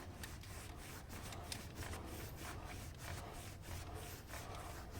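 Faint rubbing with small scattered clicks: a cloth wiping and cleaning around the screw holes of a scooter's transmission case where gear oil drips.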